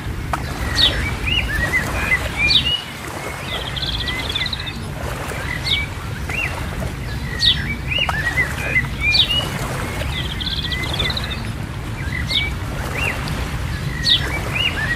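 Birdsong of sharp chirps and short warbling trills, with the same sequence of calls coming round again about every seven seconds, over a steady low rumble.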